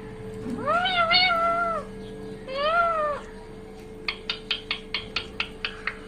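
Rose-ringed parakeet making two drawn-out, meow-like calls that rise and fall in pitch, the first longer, then from about four seconds in a fast run of short chirps, about five a second, over a faint steady hum.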